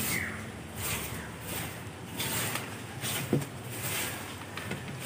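Hands skinning a raw cuttlefish, making repeated soft rustling, swishing strokes about one every three-quarters of a second, with a single light knock about three seconds in.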